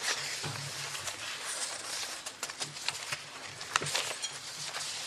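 Paper rustling and sheets being handled close to a table microphone, with scattered crackles and a sharper click about four seconds in.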